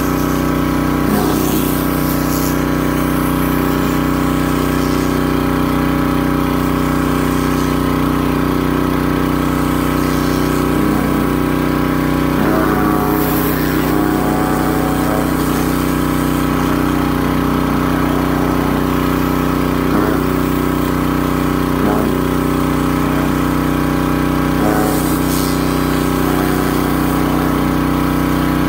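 Gas-engine pressure washer running steadily at full throttle while its spinning surface cleaner sprays concrete, adding a faint hiss of water spray.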